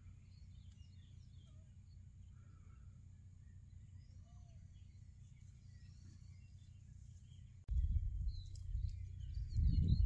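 Scattered, faint bird chirps over a low, steady outdoor rumble. About three-quarters of the way through, the sound cuts to a much louder, uneven low rumble, with a few clearer bird calls near the end.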